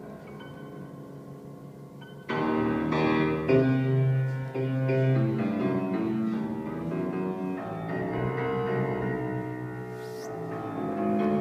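Grand piano being played: soft held notes, then louder, fuller chords and a moving melody from about two seconds in.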